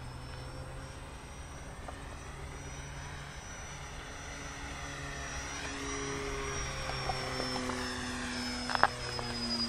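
Radio-controlled model plane's motor and propeller whining overhead, the pitch rising about halfway through as it passes and easing slightly near the end, over wind rumble. A single sharp click near the end.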